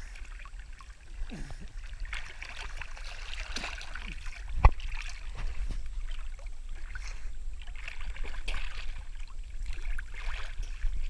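Creek water lapping and splashing against a camera held right at the waterline, over a steady low rumble. A single sharp knock about four and a half seconds in.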